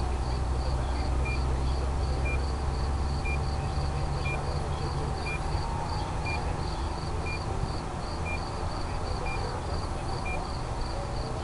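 Crickets chirping in a steady rhythm of about three chirps a second. A faint high beep sounds about once a second, and a low rumble runs underneath.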